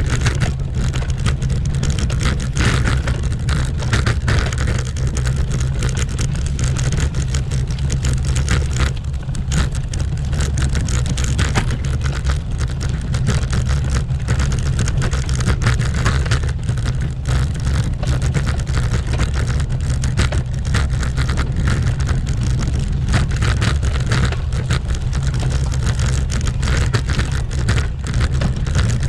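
Road bicycle rattling over cobblestones: a steady, loud rumble of tyres and frame on the pavé, shot through with constant irregular knocks and jolts.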